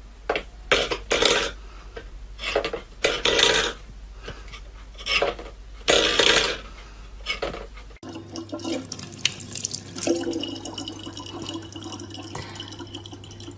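A stainless steel bowl pushed around by a cat's paw on a wooden floor, scraping and clattering in several short bursts. About eight seconds in it gives way to a thin stream of tap water running into a plastic bottle, over a low steady hum.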